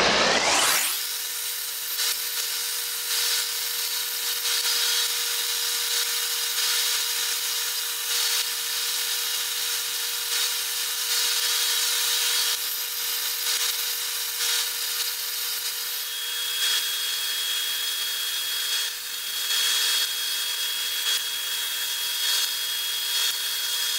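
Disc sander grinding a cherry-wood block held against the spinning disc, played back sped up, so it comes out as a high-pitched, steady grinding hiss. The sound sweeps up in pitch just at the start.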